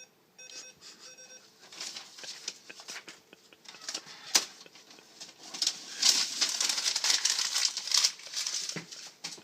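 A fax machine beeps three short times, then paper crinkles and rustles with sharp clicks as it is drawn through the jammed machine, loudest near the end.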